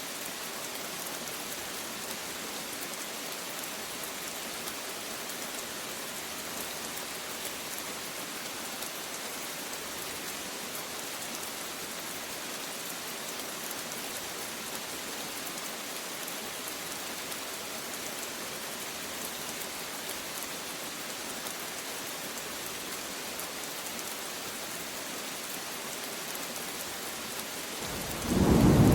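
Steady rain falling, an even hiss. Near the end a loud, low rumble of thunder breaks in.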